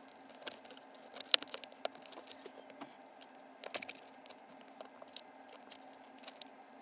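Irregular small clicks and scrapes of a stainless steel and copper haptic fidget coin being pried open with a plastic guitar pick, sped up.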